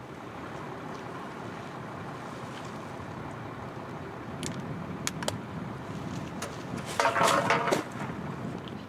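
Steady outdoor background noise. A few sharp clicks come past the middle, then near the end a loud crackling rustle of a plastic bag lasts just under a second as the bag is dropped to the ground.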